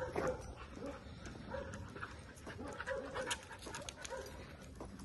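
A dog whining in short, repeated high sounds, with panting.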